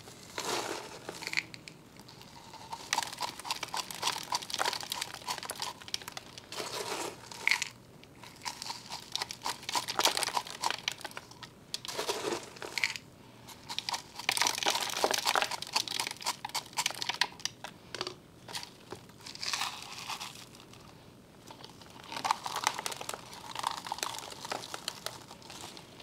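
Crunching and rustling of a chunky perlite-and-bark potting mix and a clear plastic nursery pot being handled. It comes in irregular bunches of scrapes and small clicks, with short pauses between.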